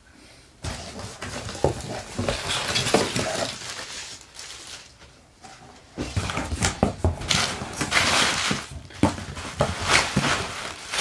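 Cardboard boxes being handled and pulled out of a shipping carton, with bubble wrap crinkling and rustling and a few soft knocks of cardboard. It eases off briefly partway through, then gets busier as the box is lifted out.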